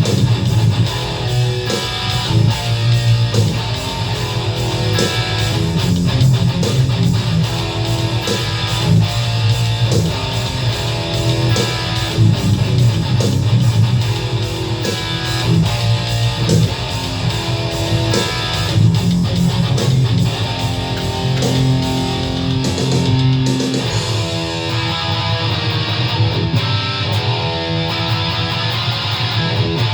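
Distorted electric guitar, an ESP LTD EC-10 through a Boss ML-2 Metal Core pedal into a Line 6 Catalyst amp, playing metal riffs over a drum-machine beat from a BeatBuddy pedal. About three-quarters of the way through, the deep kick drum drops out and the drums thin while the guitar carries on.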